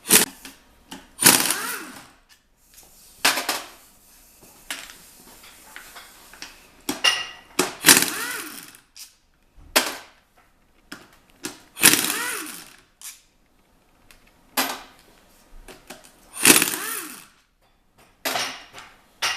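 Power impact wrench running in about a dozen short bursts, its pitch sweeping up and down in the longer ones, as it spins out the casing bolts of a manual gearbox.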